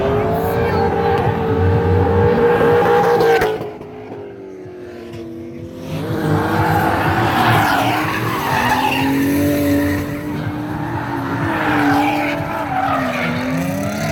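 Drift cars sliding through the course, engines revving up and down with tyres squealing. The sound drops away for about two seconds a few seconds in, then picks up again.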